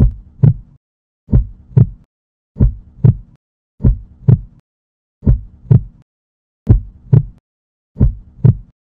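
Heartbeat sound effect: slow, evenly spaced double thumps, one pair about every 1.3 seconds, seven times over.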